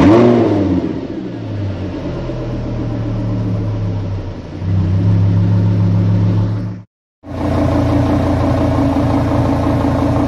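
Lamborghini Gallardo 5.2 FSI naturally aspirated V10 engine just after starting: a brief flare right at the start, settling into a steady idle that steps up to a higher, louder idle about four and a half seconds in. After a short break it is heard idling steadily from behind, at the exhaust tips.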